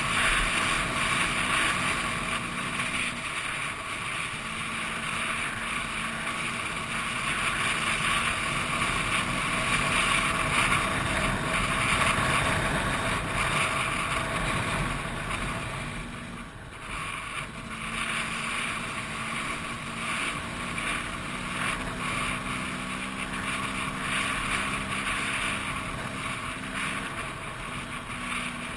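Trail motorcycle engine running under way on a dirt track, with heavy wind rush on the helmet-mounted microphone. The engine note eases off briefly about sixteen seconds in, then picks up again.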